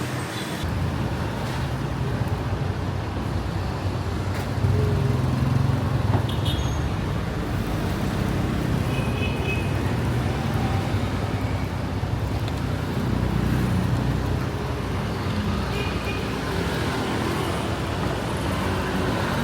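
Steady road traffic noise, a low rumble of passing vehicles, with a few brief high tones scattered through it.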